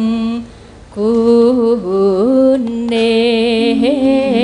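Javanese sinden (female gamelan singer) singing a slow song line, holding long notes with vibrato and sliding between pitches. She breaks off briefly about half a second in, then takes up the next long note.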